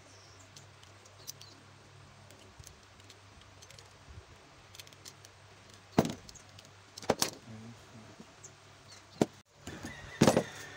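Metal hand tools being handled and set down on a plywood workbench: a few sharp clicks and knocks, the loudest about six seconds in and near the end, with a brief ringing after the last.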